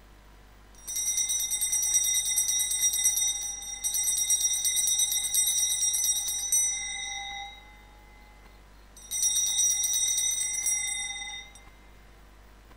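Altar bells (sanctus bells) shaken in two rounds of rapid, bright ringing, the first lasting about five seconds and the second about two and a half seconds. They are rung at the elevation of the consecrated Host during the Mass.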